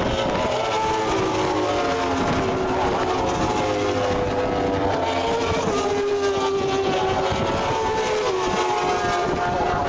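Racing motorcycles going past on the track, their engines running at high revs with several engine notes rising and falling in pitch over one another.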